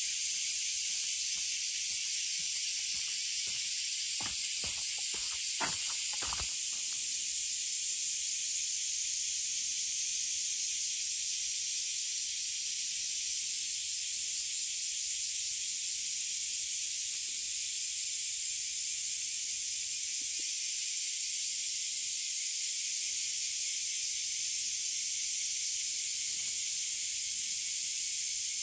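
Dense cicada chorus: a steady, high, loud hiss, with a few faint clicks about four to six seconds in. The hiss drops slightly in level about six and a half seconds in.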